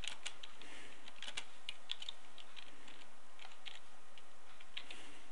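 Typing on a computer keyboard: a run of irregular keystroke clicks.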